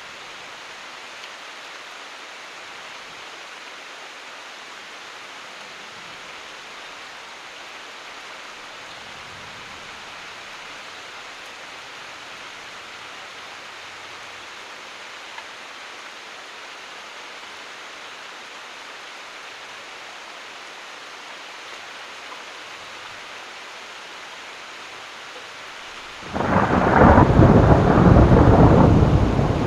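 Steady rain hissing, then about 26 seconds in a sudden loud thunderclap that goes on rumbling deep and heavy.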